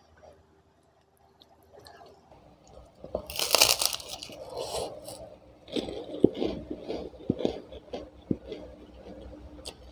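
Crisp Indonesian kerupuk cracker bitten with a loud crunch about three seconds in, then chewed with a run of crackly crunches.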